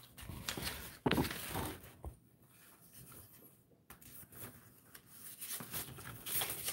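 Sheets of paper rustling and being handled, in two spells with a quieter gap of a couple of seconds between them.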